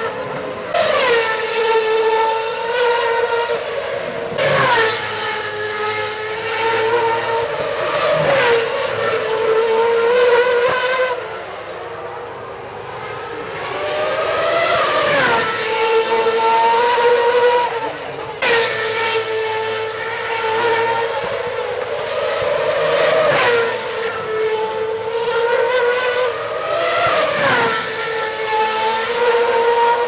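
2010 Formula 1 cars' 2.4-litre V8 engines at high revs, one car after another every few seconds. Each engine's pitch drops in steps as the car shifts down and brakes into the corner, then climbs again with quick upshifts as it accelerates away. There is a short lull about halfway through.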